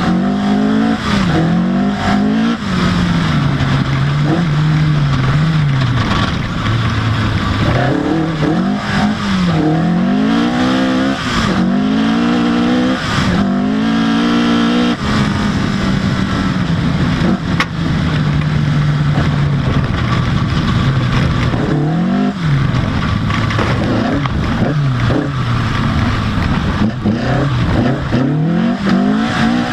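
Opel Kadett C Coupé rally car's engine driven hard, its pitch repeatedly climbing under full throttle and falling back as it is shifted through the gears and lifted off.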